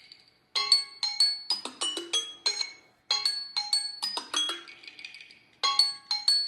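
Tablet alarm tone ringing: a quick phrase of bright, chime-like notes that loops about every two and a half seconds, three times, with a short pause between loops.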